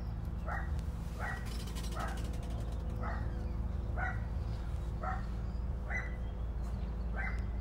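A dog barking repeatedly, about nine short barks roughly one a second, over a steady low hum.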